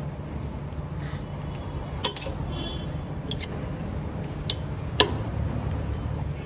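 Sharp metallic clinks of a T-handle socket wrench on a fuel injector hold-down nut as it is tightened: a few scattered clinks, some in quick pairs, the loudest about five seconds in, over a steady low hum.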